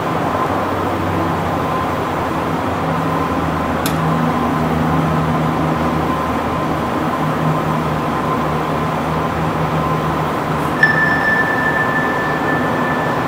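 Steady hum of a large indoor velodrome hall, with a faint click about four seconds in. A steady high tone comes on suddenly near the end and holds.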